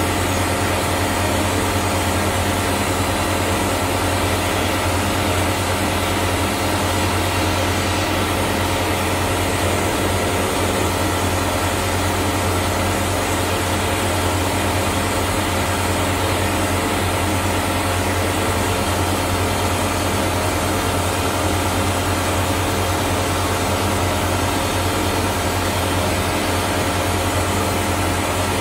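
Vapor blaster running: steady hiss of a 3D-printed nozzle's compressed-air and glass-bead slurry jet blasting a metal part inside the cabinet, over a steady low machine hum.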